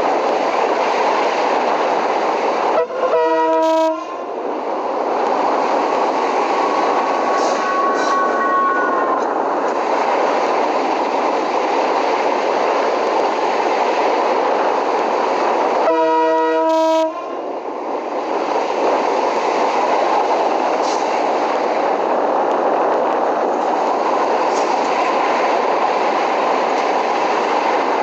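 Train running on the rails with a steady, loud noise, its locomotive's air horn sounding two short blasts, about three seconds in and again some thirteen seconds later, each lasting about a second.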